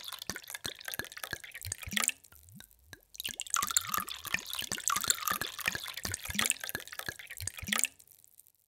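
Water pouring into a glass: a splashing hiss with many drips and short rising plops. It breaks off briefly about two seconds in, then stops near the end.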